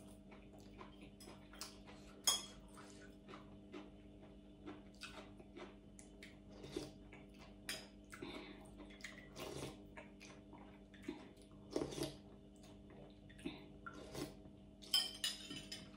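Metal spoon clinking and scraping in a small bowl of broth, with soft sips and slurps of the liquid, as irregular small clicks. A faint steady hum runs underneath.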